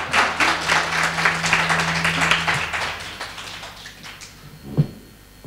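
Audience applauding, the clapping dying away over about four seconds, with a single thump near the end.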